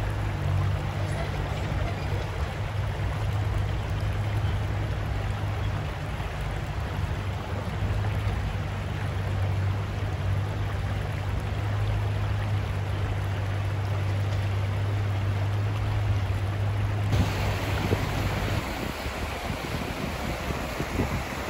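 Shallow river riffle rushing over stones, a steady wash of water, with a steady low hum underneath through most of it. About 17 s in the water sound turns brighter and hissier, and the hum stops soon after.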